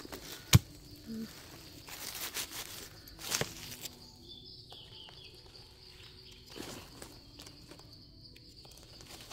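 Footsteps and rustling in dry leaf litter, with a sharp snap about half a second in and a smaller crack a few seconds later. A faint, steady, high insect buzz carries on underneath.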